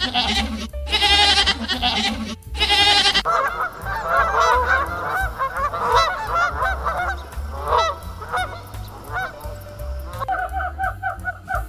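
Animal calls over background music. There are three long wavering calls about a second apart, then from about three seconds in a run of many short overlapping calls from several animals. Music with repeated notes takes over near the end.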